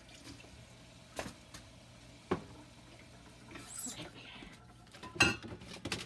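A few sharp isolated clicks and knocks over a low steady hum, with a brief hiss about four seconds in and a quick cluster of knocks near the end.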